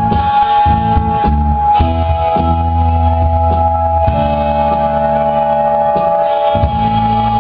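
Live rock band playing an instrumental passage: a held, steady synthesizer tone over changing bass notes, guitar and drum hits.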